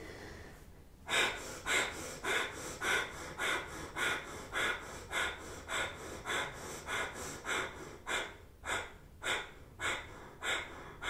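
Kundalini breath of fire: a woman's quick, rhythmic breaths pumped in and out through the nose, a little under two a second, starting about a second in.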